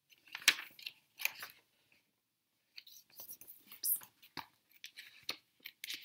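Picture book being handled and its pages turned: a scatter of short, crisp paper rustles and light taps.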